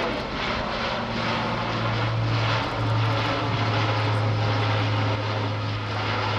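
Airbus A400M Atlas's four Europrop TP400-D6 turboprop engines running: a steady low propeller drone over a rushing engine noise, loud and continuous, with a brief dip about two and a half seconds in.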